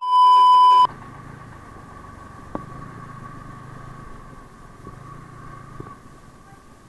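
A loud, steady test-tone beep lasting under a second, the sound of a colour-bars edit transition. Then the Yamaha R15 V3's 155 cc single-cylinder engine runs quietly at low speed as the bike rolls in, its low hum dropping away about six seconds in.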